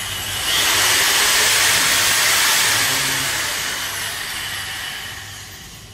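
A loud hiss like rushing air, swelling about a second in and then slowly fading away.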